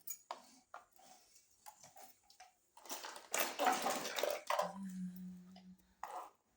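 Small plastic toy kitchen pieces and packaging being handled: light clicks and taps, then a loud rustle lasting about two seconds in the middle. A short, steady low tone follows near the end.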